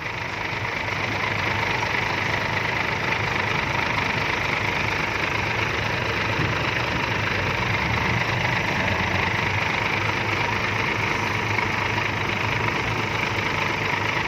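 Dump truck's diesel engine idling steadily.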